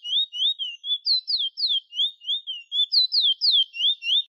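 Chestnut-bellied seed finch (the Caribbean 'bullfinch') singing: a fast string of clear, high whistled notes, some rising and some falling, about four a second. The song starts and cuts off abruptly.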